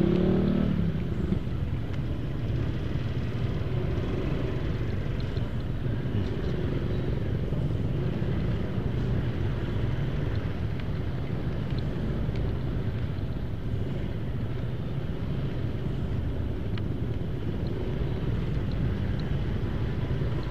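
Low, steady rumble of a Honda Vario 125 scooter engine and the surrounding stop-and-go traffic while crawling through a jam. A brief pitched sound stands out right at the start.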